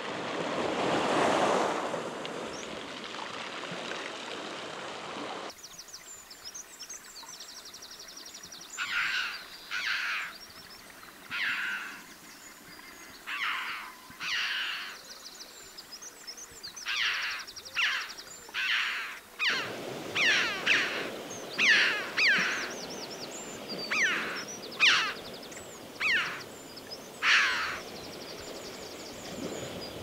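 Small waves washing over a pebble beach, cut off suddenly about five seconds in. Then a bird gives a long run of short harsh calls, about one a second, with the surf coming back under them near the twenty-second mark.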